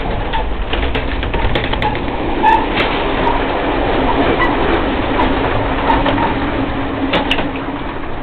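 Running noise of an Amtrak passenger train heard in the gangway between cars: wheels rumbling on the rails with rattling and clanking knocks, and a steady hum coming in about three seconds in.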